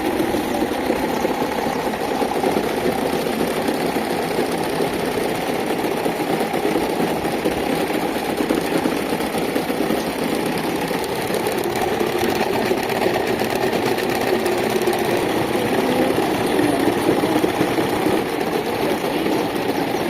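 Electric fan with a broken propeller running with a steady, rattling mechanical buzz.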